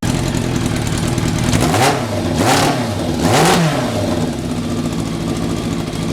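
Yamaha FZR motorcycle's inline-four engine running, revved up and back down twice, about two and three and a half seconds in.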